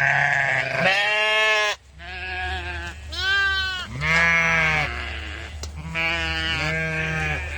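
Bleating farm animals, about six wavering calls in a row with short pauses between them.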